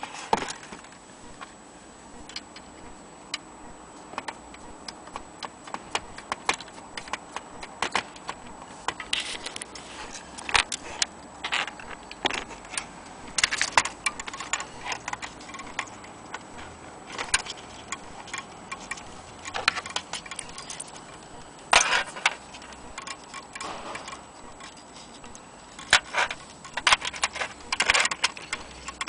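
Brass Gustav Becker Vienna wall-clock movement being handled and turned by hand: irregular metallic clicks and clinks, some in quick clusters, scattered throughout.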